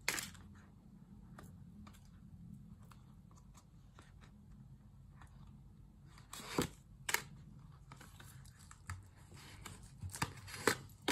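Cardboard packing inserts being pulled out of a new leather zip-around purse: short scraping and rustling sounds at the start, twice about six to seven seconds in, and several near the end, with quiet between.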